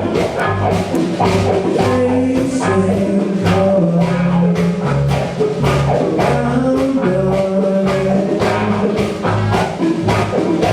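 Band playing: a bass line and drums keep a steady beat under a melody.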